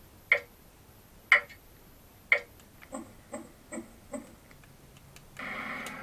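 Electronic preset sound from the small built-in speaker of a Roffie N600 white noise machine, which the reviewer likens to a Star Trek sound effect. A sharp blip sounds about once a second three times, then four quicker, softer blips follow. A steady buzzing hum starts about five seconds in.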